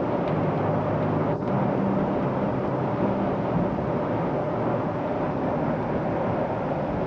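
Steady running noise of a passenger train heard from on board: a constant rumble and hiss with a steady hum underneath.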